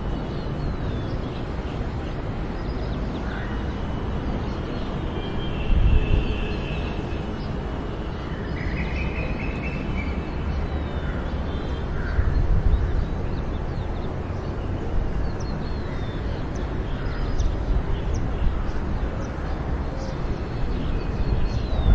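Outdoor ambience: wind rumbling on the microphone, swelling now and then, with birds calling here and there.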